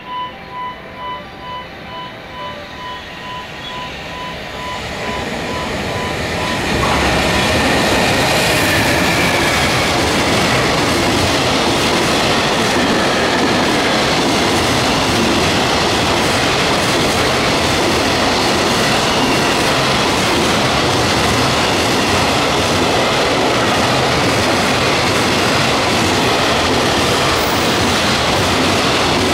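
JR Freight EF210 electric locomotive hauling a long container freight train through a station at speed. The train's noise swells and then jumps to a loud, steady level about seven seconds in, and stays there as the wagons run past. Over the first seven seconds a repeating electronic warning beep sounds and is drowned out as the train arrives.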